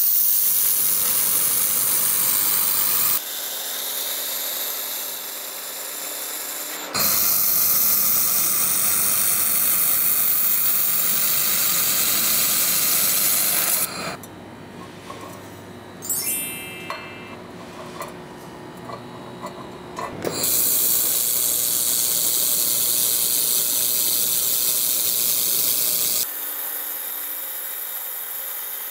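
JASIC WF-22L handheld laser welder welding steel with wire feed: a loud, steady hissing of the weld, broken by sudden cuts into quieter stretches of low hum with a few clicks.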